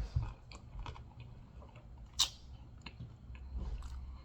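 A person chewing a mouthful of nachos made with Doritos close to the microphone: scattered small wet clicks of the mouth, with one louder sharp bite or crunch about two seconds in.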